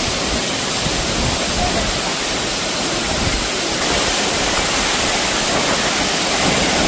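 Loud, steady rush of a waterfall heard close up at its foot, where its spray is falling heavily.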